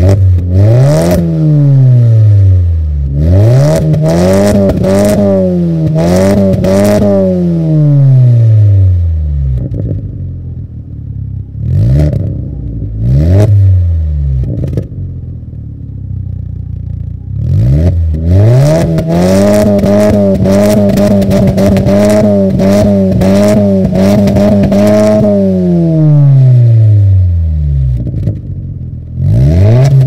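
2005 VW Jetta 2.0L 8-valve four-cylinder engine (BEV) revved while parked, heard at the tailpipe through a stock catalytic converter and a Magnaflow 14829 muffler. A few quick revs rise and fall early on, then some short blips, then one long rev held high for several seconds before the engine drops back to idle. Another rev starts right at the end.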